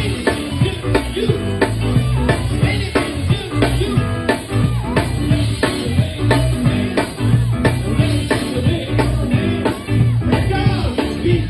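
A live band playing an upbeat groove: a drum kit keeps a steady beat over bass and other pitched instruments.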